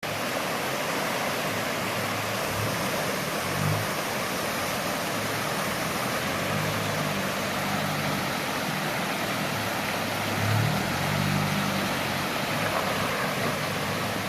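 Nissan GU Patrol 3.0 litre turbo diesel engine running at low revs, its note rising and falling a little, under a steady loud hiss.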